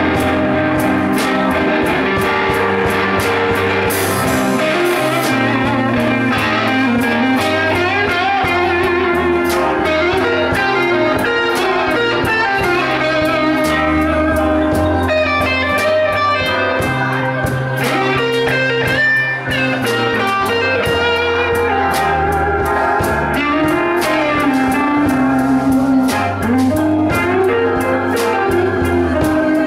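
Live blues band playing an instrumental passage, with electric guitar to the fore over bass guitar, keyboard and drum kit with cymbals.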